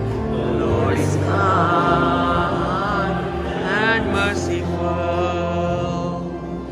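Singing in a church service: voices in a slow, chant-like hymn over steady sustained low notes.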